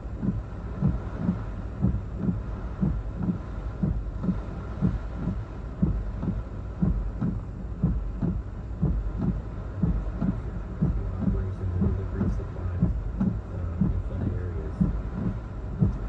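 Low rhythmic thumping, about two to three beats a second, over a steady low rumble.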